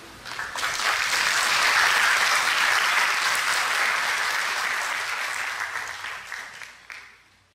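Audience applauding: a burst of clapping that builds over the first couple of seconds, holds, then fades away near the end.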